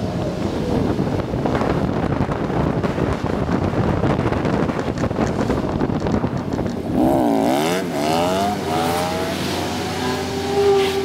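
Wind and road noise from a moving vehicle. About seven seconds in, a pitched whine with overtones rises and falls several times, then settles into a steadier tone as the vehicle comes to a stop in traffic.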